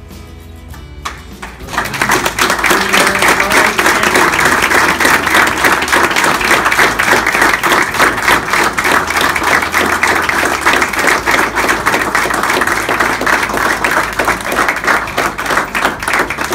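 A roomful of people applauding. The applause starts suddenly about two seconds in, holds steady, and eases off near the end.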